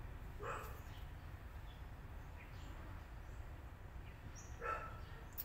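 Newborn kittens mewing: two short, thin cries, one about half a second in and one near the end, over a low steady background rumble.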